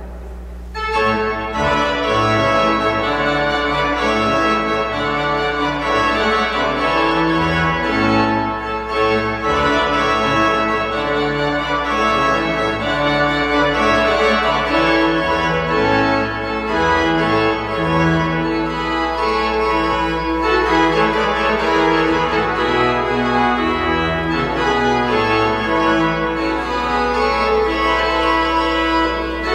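Church organ playing a postlude after the dismissal at the end of Mass: sustained, full chords that begin about a second in and carry on steadily.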